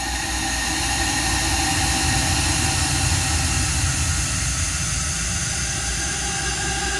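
A recording of a woman's coughing fit, time-stretched about 24-fold, so that it becomes a steady, drawn-out drone of many held tones over a low rumble. It swells slightly over the first two seconds, then holds with no breaks.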